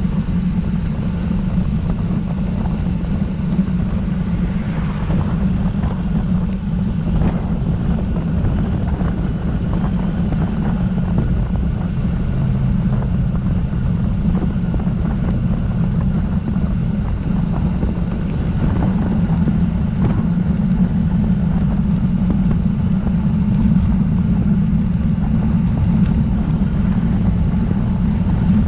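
Wind buffeting the camera's microphone while riding a road bike: a steady, loud low rumble.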